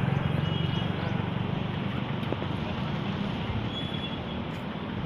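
Steady rushing noise of flood water, with the low rumble of a passing vehicle's engine fading away over the first few seconds.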